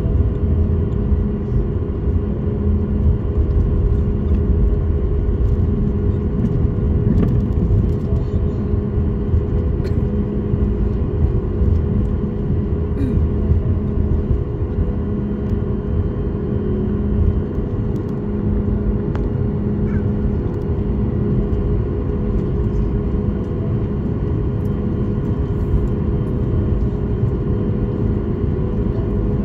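Cabin noise of a Boeing 737 MAX 8 taxiing, its CFM LEAP-1B engines running at taxi thrust: a steady rumbling drone with a steady hum on top and a lower hum that fades in and out.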